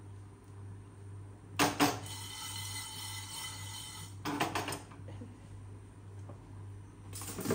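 Frying pan of dry-roasting spice seeds knocked and shifted on a gas stove's steel pan support: a sharp metal clank about a second and a half in that rings on for a couple of seconds, a few quick clatters about halfway, and more near the end.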